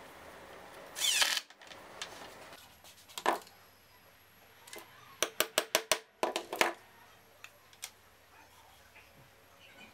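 Ryobi cordless drill-driver running briefly as it drives a screw, stopping abruptly about a second in. Later comes a quick, even run of about six sharp taps, then two more.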